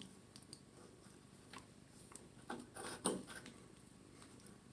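Faint, scattered clicks and light taps of metal parts handled by hand as the dome cap is started onto the threads of a Delta Monitor shower valve; the sharpest tap comes about three seconds in.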